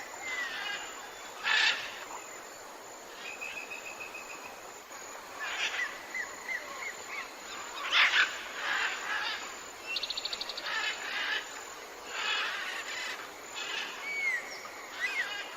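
Several wild birds calling over a steady background hiss: repeated short down-slurred whistles, a brief trill, a fast rattling call about ten seconds in, and louder harsh calls near the start and about halfway through.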